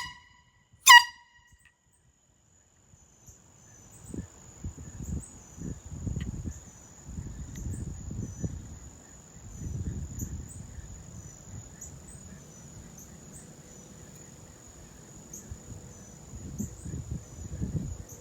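Air horn giving short loud blasts: one just ending at the start and another about a second in. Afterwards a steady high-pitched trill, typical of crickets, continues, with an uneven low rumble from about four seconds in.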